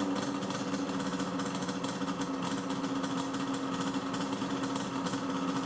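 Yamaha snowmobile's two-stroke engine running steadily at an even speed, newly brought back to life after repair.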